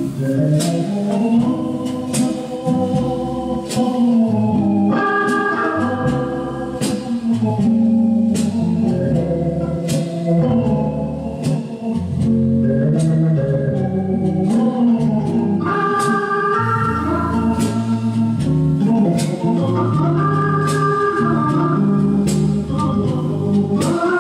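Organ-led music with sustained, changing chords and a steady percussive tick, played from a vinyl record on a 1973 Philips GF 808 record player and heard through its Philips EG 0417 compact loudspeakers.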